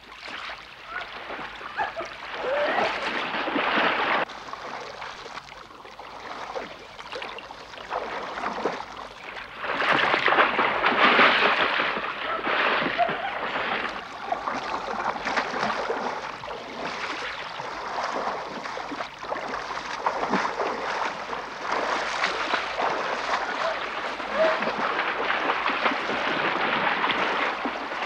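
Sea water sloshing and splashing around a small rowing boat. It fades in from silence at the start, then swells and eases in irregular surges.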